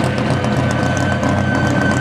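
V8 engine of a Chevrolet stock car running at steady low revs as the car rolls slowly away, with a thin high whine over the engine note.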